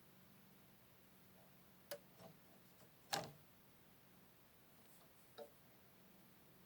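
Near silence with a faint steady hum, broken by a few light clicks and knocks, the loudest a little after three seconds in: small parts and vacuum tubes being handled on a TV chassis.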